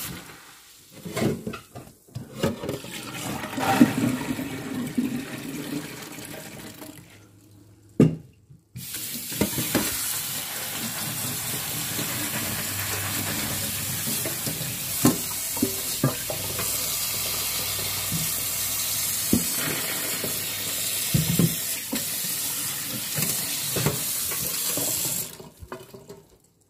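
Kitchen tap running cold water over soaked green mung beans, first into a bowl and uneven, then steady for a long stretch as the water pours through a metal mesh strainer into a stainless steel sink, with a few light knocks. The water stops shortly before the end.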